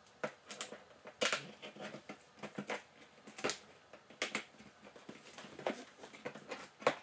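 A cardboard box being cut open and handled: scissors snipping and scraping through the packing tape, then the cardboard flaps and lid rubbing and knocking as the box is opened, in a dozen or so irregular short scrapes and clicks, the sharpest near the end.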